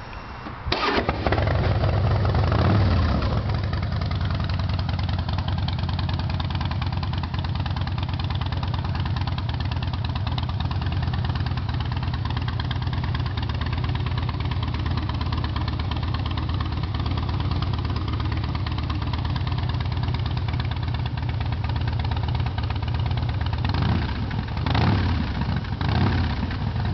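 2008 Harley-Davidson Night Train's Twin Cam 96 V-twin, fitted with Vance & Hines Big Radius pipes and a Screaming Eagle air filter, starting up about a second in and revving briefly, then idling steadily. Near the end the throttle is blipped twice.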